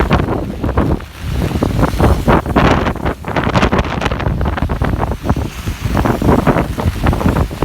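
Typhoon wind buffeting the microphone in loud, irregular gusts, with a rushing roar beneath.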